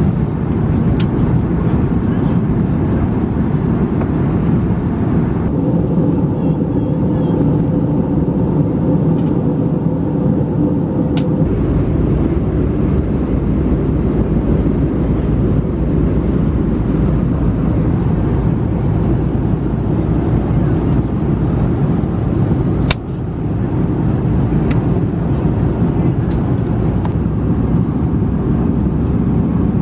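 Steady cabin noise inside an Airbus A321 airliner in flight: a deep, even rush of airflow and engine drone. Its tone shifts twice in the first dozen seconds, and there is one sharp click about three-quarters of the way through.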